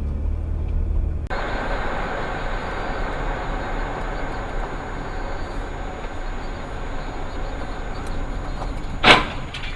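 Dashcam recording inside a moving car: a low idling hum, then from about a second in steady road and engine noise. Near the end comes a single sudden loud bang, typical of a collision.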